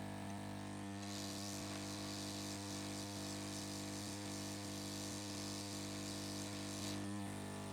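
Hot-air SMD rework station running while it heats up: a steady low electrical hum, with a hiss of blown air that starts about a second in and stops near the end.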